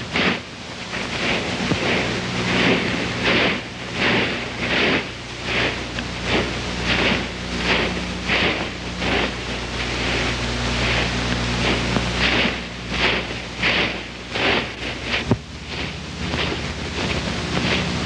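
Footsteps crunching through snow in a steady walking rhythm, about two steps a second, over a constant low hum.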